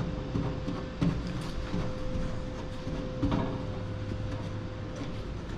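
Steady low hum and rumble of a workshop, with a few light knocks and faint taps as a rag is dabbed on a painted steel truck fender and the panel is handled.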